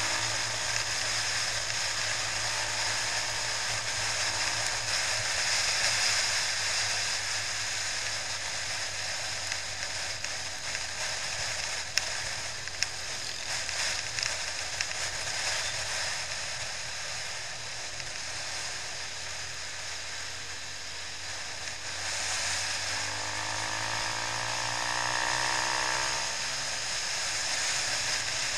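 Motorcycle riding at road speed, heard from a helmet camera: steady wind rush over the camera with the engine's hum underneath. A couple of sharp ticks come about twelve seconds in, and the engine note slides up and down near the end.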